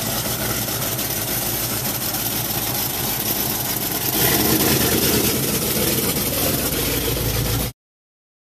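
1967 Pontiac GTO's V8 idling steadily. It grows louder about four seconds in, then stops abruptly near the end.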